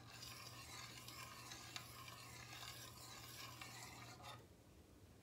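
Faint scraping of a spoon stirring coconut cream in a stainless steel pan, over a low steady hum; both stop about four and a half seconds in.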